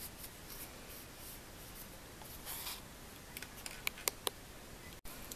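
Faint handling of a knitted bootie and wool yarn during needle sewing: a soft rustle about halfway through, then a few small sharp ticks.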